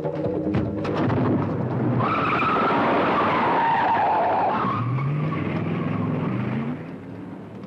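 Car tyres squealing in a skid, with a whining screech that sags slightly in pitch, followed by the car's engine revving up with rising pitch before the sound fades near the end.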